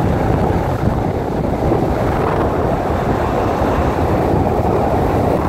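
Steady wind rush on the microphone with the road noise of a moving car.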